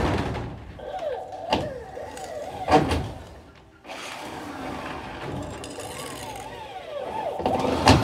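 Sharp knocks as concrete blocks are set and tapped into place on a block wall, the loudest about three seconds in and again near the end, with a wavering tone rising and falling in the background.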